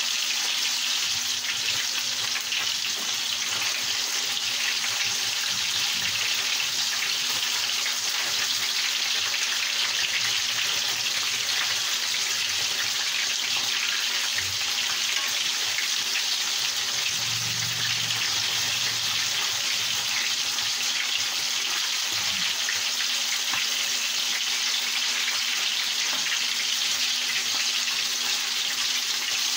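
Pieces of fish frying in hot oil in a skillet: a steady sizzle.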